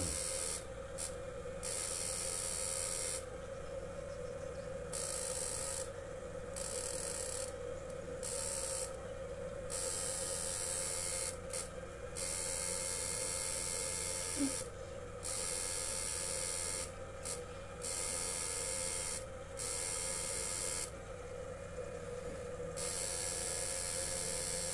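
An electro-fishing inverter running off a car battery under a load of incandescent bulbs: a steady electrical whine, with a high hiss that cuts in and out every second or two.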